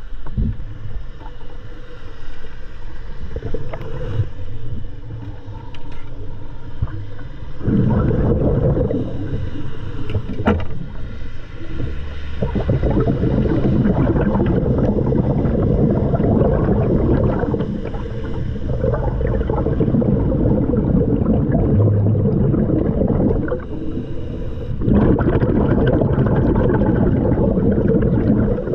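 Underwater recording of a scuba diver's regulator: loud surges of gurgling exhaust bubbles every five or six seconds, in time with the diver's breaths, with quieter stretches between them.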